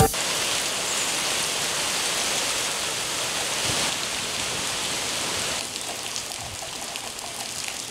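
Steady rain falling, an even hiss of many drops; it turns quieter and duller about five and a half seconds in.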